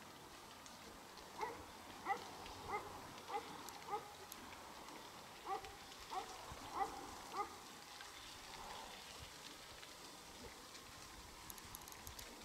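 Distant animal calls from a herd of goats and other animals on a hillside: nine short, evenly spaced calls in two runs, a little under two a second, with a pause between the runs.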